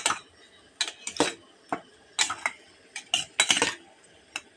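A spoon scraping and clinking against a stainless steel bowl while mixing small gutum fish, in irregular strokes that come faster in the second half.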